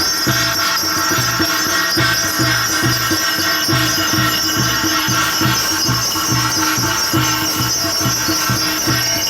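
Korean shamanic gut ritual music: a drum beating steadily about three times a second under a constant shimmer of ringing cymbals and jingling bells.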